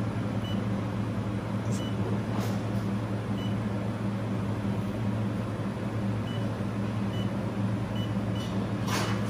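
Steady electrical hum of a handheld laser welding machine running while idle, with a few faint short high beeps now and then.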